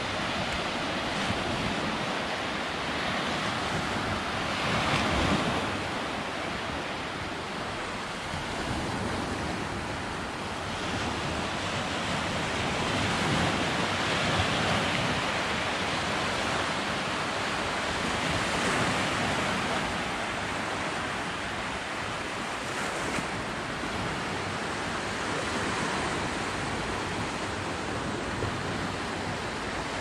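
Small sea waves breaking and washing up a sandy beach, a steady surf wash that swells and eases every few seconds.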